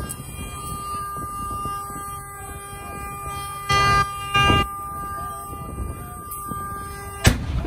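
A vehicle horn sounding one steady note, broken by two short loud bursts of noise about halfway through. Near the end a single sharp bang: a tire bursting in the heat of a truck fire.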